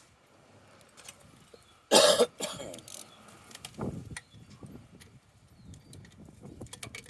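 A person coughs loudly once about two seconds in, then clears his throat near four seconds. Scattered small clicks and taps of hand tools come from work on the motorcycle's ignition coil mounting.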